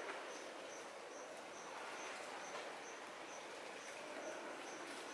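Quiet woodland ambience: a faint steady hiss with a high, even chirp repeating about three times a second.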